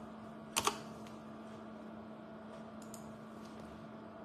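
A computer keyboard key struck sharply once about half a second in, with a few faint key clicks later, over a steady low hum.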